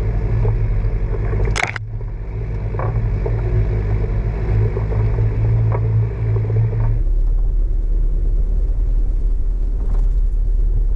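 Jeep Cherokee driving slowly over a rough gravel track: a steady low engine rumble, with a sharp knock from below about a second and a half in and a few lighter ticks of stones. About seven seconds in the sound turns duller and deeper.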